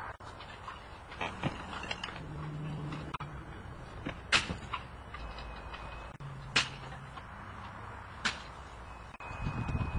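Roof slate stripping: scattered sharp clacks and knocks of slates and tools over a steady background noise, with two short low hums.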